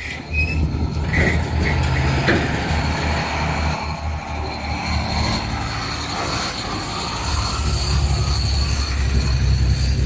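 Heavy tractor truck's diesel engine running at idle, a steady low rumble. A thin steady high whine joins it about four seconds in.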